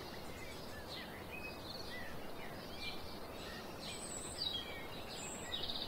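Outdoor ambience: a steady faint hiss with small birds chirping briefly here and there.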